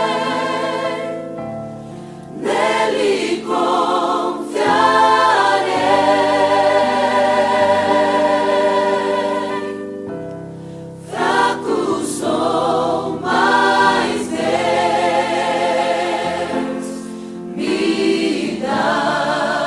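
Background music: a choir singing a slow Christian song in long held notes with vibrato, in phrases with short breaks between them.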